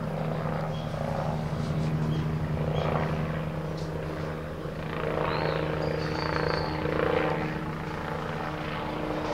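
Steady low mechanical hum at an unchanging pitch, with fainter irregular background noise swelling over it now and then.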